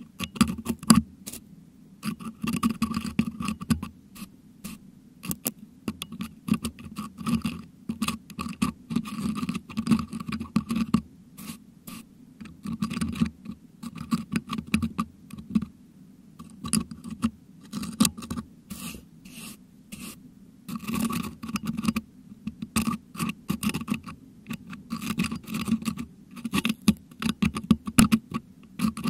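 Metal dental hook scraping and picking at the metal mesh grille of a Blue Yeti microphone, prying out crushed meringue: very close, irregular scratches and sharp clicks with a few brief pauses.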